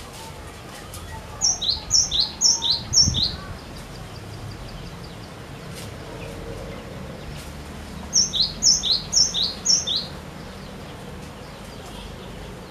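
Cinereous tit (glatik batu) singing two phrases several seconds apart. Each phrase is four quick repeats of a two-note figure, a high note followed by a lower one.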